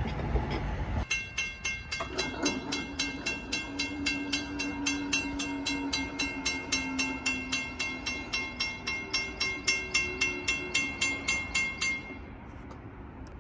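Railroad grade-crossing bell ringing at about three strikes a second, stopping abruptly near the end, with a low horn-like tone faint underneath for several seconds.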